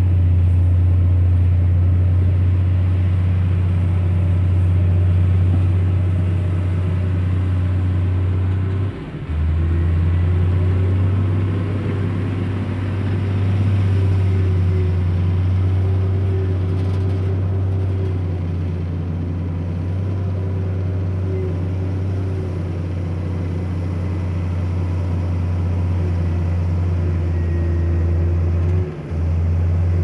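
Heavy diesel engine of earthmoving equipment running steadily with a deep drone, dipping briefly twice: about nine seconds in and near the end.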